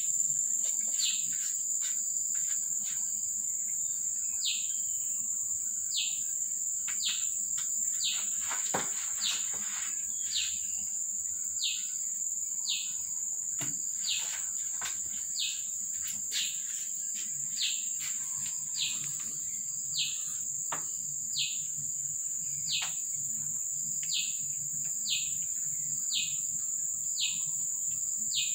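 Steady high-pitched insect drone, with a bird's short falling call repeated about once a second.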